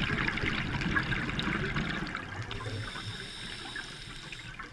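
Scuba diver's exhaled breath bubbling out of a regulator, heard underwater, louder in the first half and fading toward the end.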